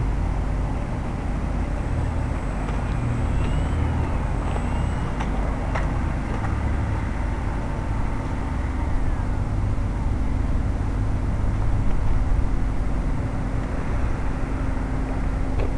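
RC airplane taxiing on pavement, heard through its onboard FPV camera's microphone as a steady low rumble with hiss.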